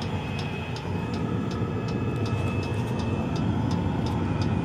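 Fuel-burning coolant parking heater running with a steady turbine sound from its combustion blower, like a little jet engine. Its fuel pump clicks evenly over it, about two to three clicks a second.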